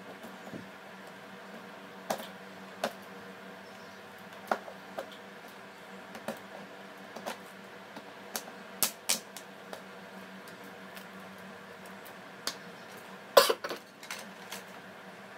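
Scattered sharp plastic clicks and taps as the back cover of a Huawei Y7 2018 phone is prised off by hand, with a louder clatter near the end, over a steady background hum.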